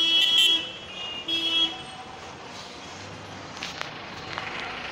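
Vehicle horn honking in two short blasts in the first two seconds, over steady street traffic noise.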